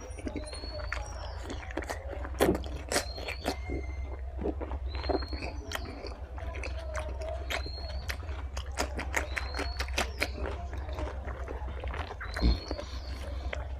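Close-up chewing and biting of pork fry with rice: many short, sharp mouth clicks and smacks, one louder one about twelve seconds in. Short high chirps recur every second or two behind it, over a steady low hum.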